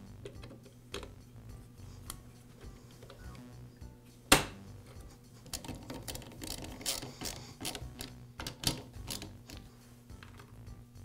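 Handwork on a chainsaw's plastic air filter base: the hard plastic part clicking into place and a screwdriver driving its screws. One sharp click about four seconds in, then a run of small clicks and scrapes.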